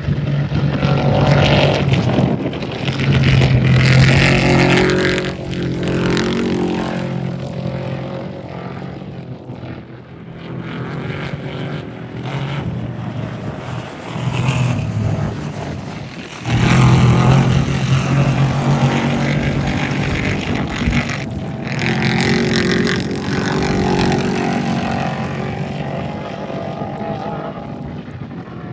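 Off-road race trucks passing at speed, engines running hard with the pitch rising and falling through gear changes. The sound swells to its loudest in the first few seconds and again about seventeen seconds in, after a brief drop.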